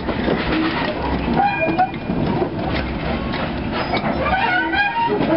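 Goods wagons and a brake van rolling past on the rails, with the wheels rumbling and clicking over the track and short high squeals from the wheels.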